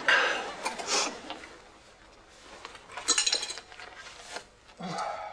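Cutlery and dishes clinking at a laid dinner table: a few separate taps and clinks, with a brighter cluster of clinks about three seconds in.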